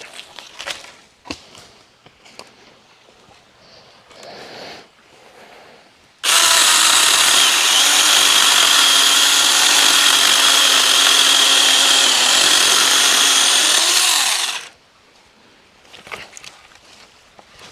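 Saker mini battery-powered electric chainsaw running at full speed for about eight seconds, starting abruptly about six seconds in and cutting off suddenly. Before and after it there are light knocks and handling sounds.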